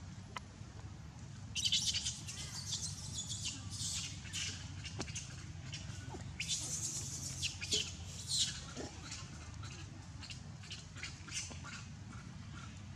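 A baby monkey giving a series of harsh, high-pitched squeals and screeches, several seconds of short cries that thin out near the end, over a steady low hum.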